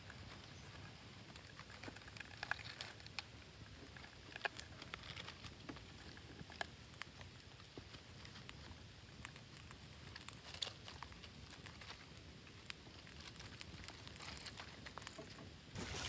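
Faint, irregular clicks and scratches of parakeets' beaks and claws on a dead tree stump and its dry leaves, over a low steady hiss.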